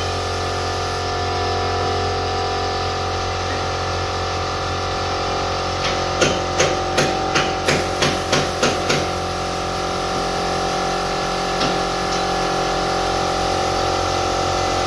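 Compressed-air spray gun hissing steadily as it sprays paint, over a constant mechanical hum. Between about six and nine seconds in comes a run of about ten sharp clicks, roughly three a second.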